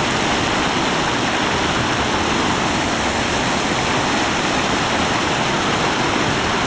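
Steady rush of whitewater pouring down a natural rock waterslide in a river, churning around a swimmer being carried through it.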